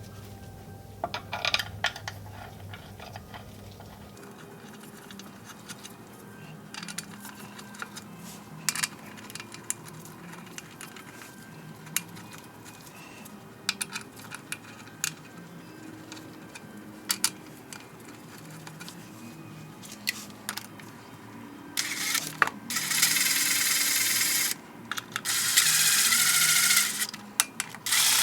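Light metallic clinks and taps of transfer case parts being handled and fitted by hand. About 22 seconds in come three loud bursts of hissing, each lasting a second or more.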